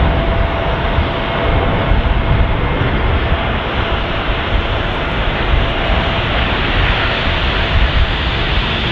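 Jet airliner engines on landing approach, a steady rushing noise with a faint high whine that fades away about six seconds in, under strong wind buffeting the microphone.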